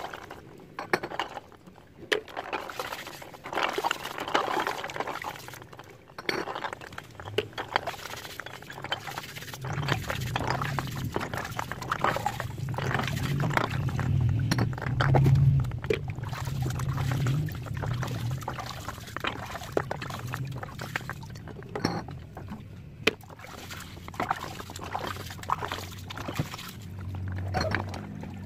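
Steel wool scrubbing a wet plastic bottle with splashing water, in many quick scrapes and crinkles: the oily outside of the bottle is being rinsed clean before soaping. A low rumble joins about a third of the way in.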